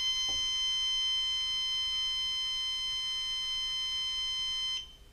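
Missile Works RRC3 altimeter's piezo beeper sounding one long, steady, high-pitched tone for about five seconds, then cutting off suddenly. It is the altimeter powering up as its switch wires are joined, on a good 9-volt battery.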